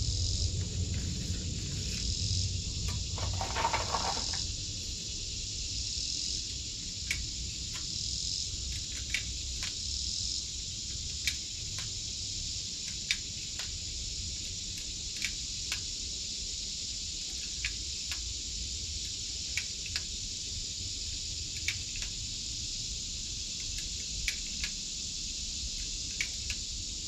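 Steady high chirring of insects, with sharp light clicks every second or two and a brief rustle about three seconds in.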